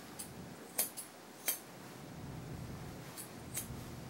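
Metal grooming shears clicking: about six short, sharp clicks spread unevenly, the loudest two close together about a second in. A faint low hum comes in about halfway.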